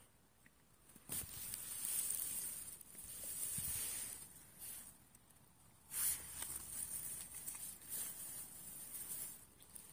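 Intermittent rustling hiss that comes and goes in swells of a second or two, with a sharper surge about six seconds in.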